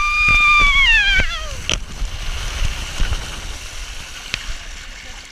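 One long high-pitched squeal from a person's voice: it rises, holds for about a second, then falls with a waver and stops about a second and a half in, over a steady noisy background that fades toward the end.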